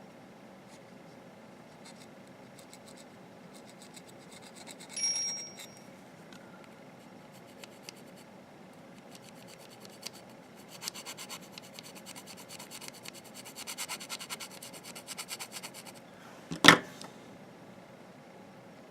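Small precision screwdrivers being handled, with light clicks and scratchy rattles. A short metallic ping comes about five seconds in, a run of rapid clicking follows later, and one sharp knock comes near the end.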